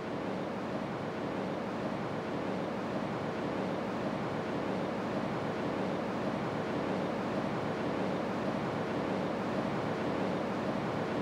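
Steady background hiss of an indoor market hall, with a faint low hum running under it.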